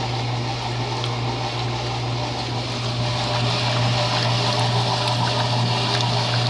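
Electrolux LE08 washing machine running with water rushing through it over a steady electric hum, which gets slightly louder about halfway through.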